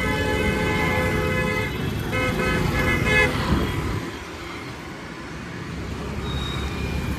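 A vehicle horn honks in two long blasts, the first ending about a second and a half in and the second lasting about a second, over steady road traffic and engine noise.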